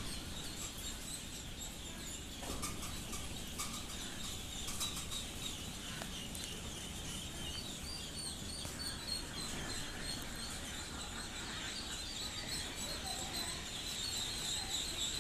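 A large flock of laying-duck ducklings peeping all together, a dense steady chorus of high chirps.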